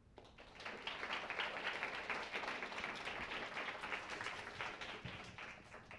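Audience applauding, swelling within the first second and dying away near the end.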